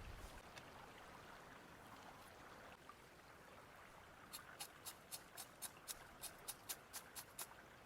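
Knife chopping on a cutting board: quick, even, light strokes, about four a second, starting about four seconds in, after a few seconds of faint steady hiss.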